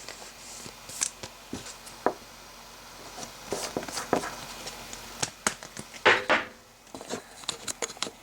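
Trading cards and plastic card holders being handled: scattered light clicks and rustles, with a brief louder scrape about six seconds in.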